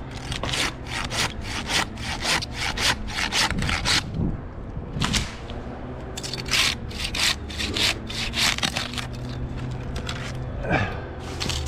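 Silky handsaw cutting through white pine in quick, even strokes of about four a second, with short breaks about four and nine seconds in.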